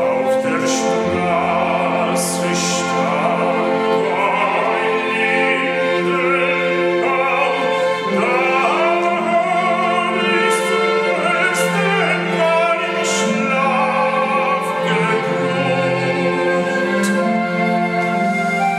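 A baritone singing a classical art song with vibrato, accompanied by a small orchestra with bowed strings.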